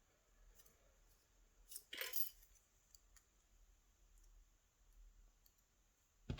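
Faint clicks from small lock parts, driver pins from a pin-tumbler cylinder, being handled, with one brief louder rustle about two seconds in, then a few scattered ticks.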